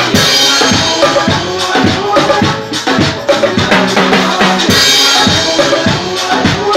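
Latin percussion solo: timbales and cymbals struck with sticks in a fast, steady rhythm over an electronic DJ backing track, with a cymbal crash at the start and another about two-thirds of the way through.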